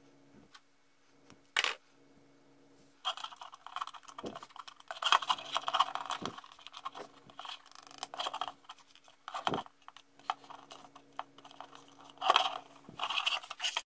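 Small plastic and metal parts clicking, scraping and rattling under the fingers as a steering pushrod is fitted to a servo horn and the jet nozzle is moved by hand on a 3D-printed hull. Scattered sharp clicks, then denser rattling from about three seconds in, loudest near the end, over a faint steady hum.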